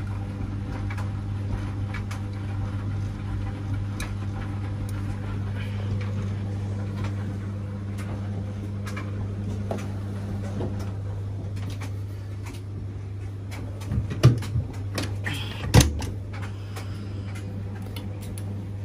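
Washing machine running mid-wash: a steady low hum with scattered light clicks as the drum turns the laundry, and two louder knocks about 14 and 16 seconds in.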